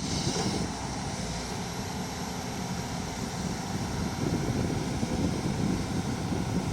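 Komatsu hydraulic excavator's diesel engine running steadily, getting a little louder from about four seconds in.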